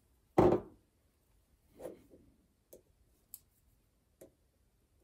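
Handling sounds of a camera battery pack being tested with multimeter probes: one loud knock about half a second in, a softer knock near two seconds, then three light clicks as the probes touch its contacts.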